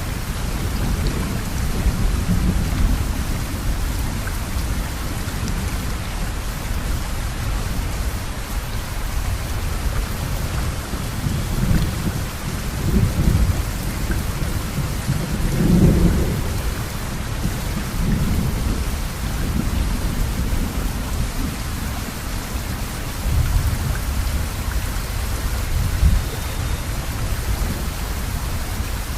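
Thunderstorm: steady heavy rain with thunder rumbling low, swelling and fading several times, loudest about halfway through.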